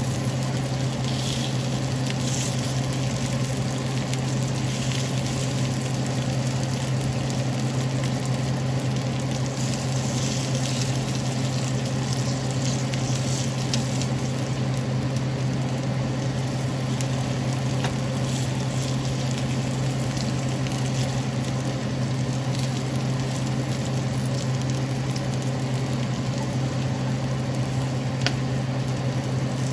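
Marinated pork slices sizzling on a hot cast-iron grill pan, with scattered light clicks of a fork against the pan as the pieces are lifted off. A steady low hum runs underneath.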